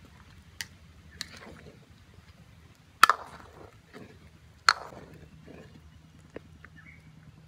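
Ladle knocking against the side of a metal wok while stirring cassava pieces in boiling water: five sharp clinks, the loudest two about three and four and a half seconds in, over a faint steady background.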